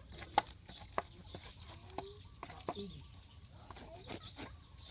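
Irregular sharp taps and knocks of hand food preparation, with a couple of short animal calls about two to three seconds in.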